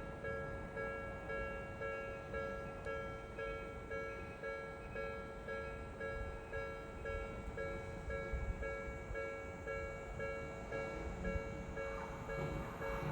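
Japanese level-crossing warning alarm sounding its steady, repeating electronic ding. Near the end, a train starts to rush past.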